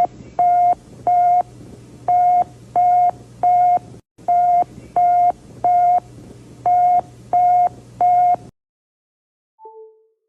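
Emergency alert alarm tone: short, steady, single-pitch beeps in groups of three, about a dozen in all, over a low hum, stopping suddenly after about eight and a half seconds. A faint brief two-note blip follows near the end.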